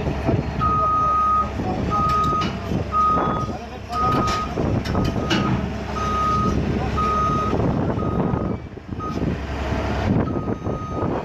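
A heavy vehicle's reversing alarm beeping about once a second over the loud running of a heavy engine. The beeps pause briefly near the end, then resume.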